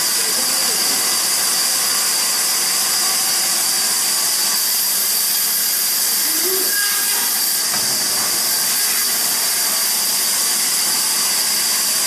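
Band saw running, its thin blade cutting through a grey porous block with a steady hiss.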